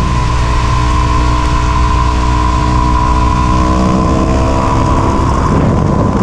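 Yamaha WR250 single-cylinder four-stroke engine running at fairly steady revs while the bike is ridden. A rushing noise builds near the end as the engine note blurs.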